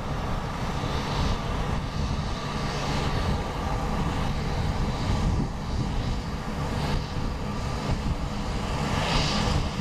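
Steam-hauled train of A4 Pacific 60019 Bittern pulling away into the distance: a steady rumble of the locomotive and coaches, with some brighter swells, the strongest near the end.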